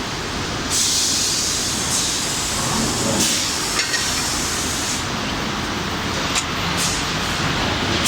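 Forging-line machinery running with a steady noisy hum, broken by several short bursts of hissing and a couple of light clicks.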